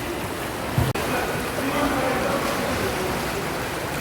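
Hydromassage pool jets bubbling and churning the water in a steady rush, with a momentary break about a second in.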